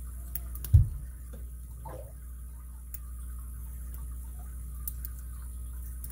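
Faint scattered ticks and clicks of a pick and tension wrench working the pins of a Master Lock M15 padlock during single-pin picking, with a single low thump under a second in, over a steady low hum.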